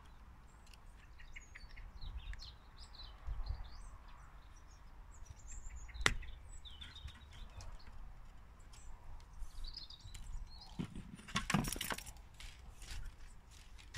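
Small birds chirping in the background. A single sharp click about six seconds in and a short clatter near the end come from the stringing clamp and tension gun being handled.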